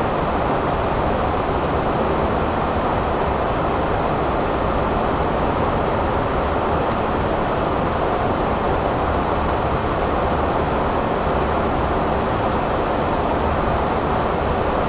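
Steady rushing noise of airflow and engines heard on the flight deck of an Airbus A340 in flight, an even roar with a faint steady hum underneath.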